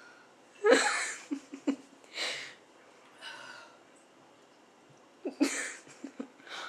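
A person breathing out in four sharp, breathy puffs: the first, about a second in, is the loudest, two fainter ones follow, and the last comes near the end.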